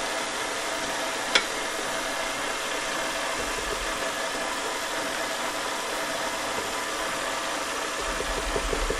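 KitchenAid stand mixer running steadily, its motor whirring as the beater works thick matzo ball batter. A single click about a second in, and a quick run of regular ticks near the end.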